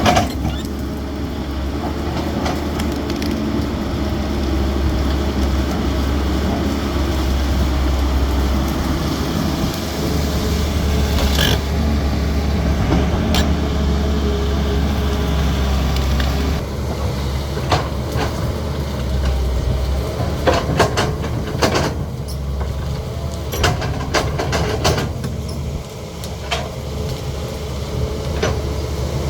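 Caterpillar 320D excavator's diesel engine running steadily at working speed, with scattered knocks and clanks that come more often after about 17 seconds, when the engine drone eases slightly.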